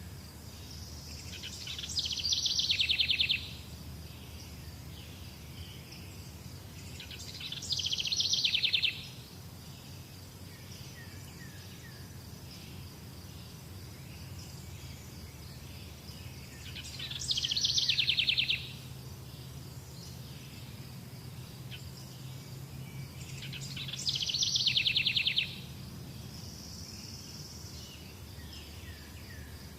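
A bird singing a short, fast trill four times, each about a second and a half long, over a steady high-pitched insect chirring.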